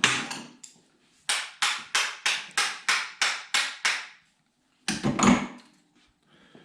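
Hammer blows on metal working a stuck cam bearing out of a Chevy 454 big-block: one hard blow, then a quick, even run of about ten strikes, about three a second, then a heavier knock near the end.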